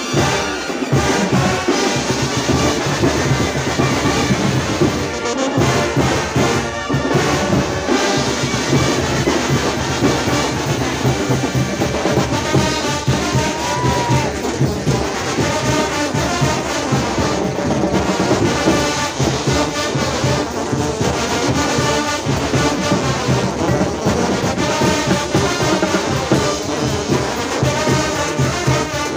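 Massed Mexican bandas de viento playing live together: trumpets, trombones, clarinets and sousaphones over a bass drum and cymbals.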